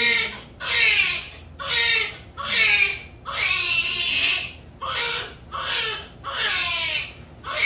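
Newborn baby crying just after birth: a run of short wails about one a second, mostly falling in pitch, with one longer cry near the middle.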